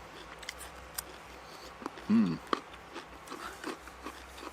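A person chewing crunchy vegetables, likely carrots, close to the microphone, with scattered soft crunches and mouth clicks. A short vocal sound, like an 'mm', about two seconds in.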